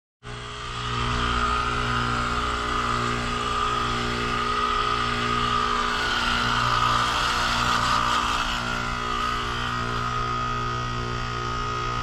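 Goodman GSZ14 heat pump outdoor unit running: a steady low compressor hum under a rushing hiss. The sound grows louder about a second in.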